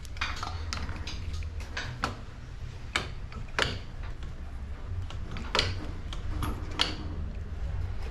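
Irregular light clicks and taps of tools and fork parts being handled on a workbench, about a dozen over several seconds, over a low steady hum.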